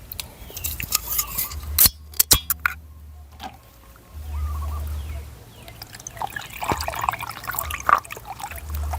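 Eating noodle soup: liquid sounds of broth being spooned and slurped, with sharp clicks of utensils against the bowl.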